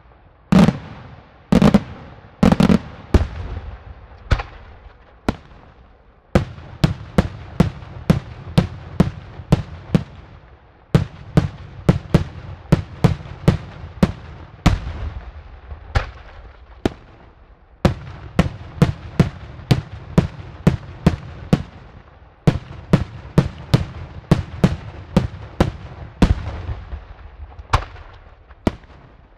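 Daytime fireworks bursting overhead in loud bangs. There are a few heavy booms about a second apart at first, then rapid runs of sharp reports, two or three a second, with short lulls between the runs.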